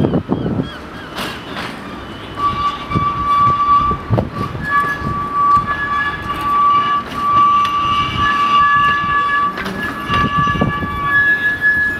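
Narrow-gauge electric tram's wheels squealing on curved track as it rounds into the terminus loop. A steady squeal starts about two seconds in, a higher squeal joins a few seconds later, and both come and go, over rolling rumble and clicks of the wheels on the rails.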